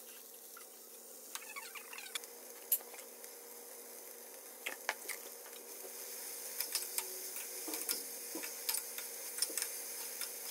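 Fiddlehead ferns sizzling in a hot frying pan, with the clicks and scrapes of a metal spatula stirring them. The sizzle grows louder about halfway through.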